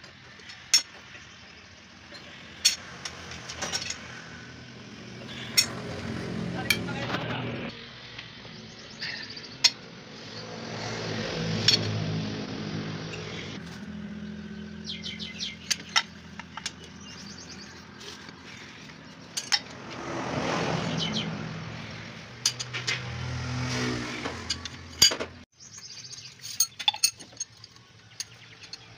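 Metal tools clinking and tapping sharply against a Massey Ferguson 375's cylinder head and valve gear as it is worked on. Passing vehicles swell up and fade several times behind the clinks.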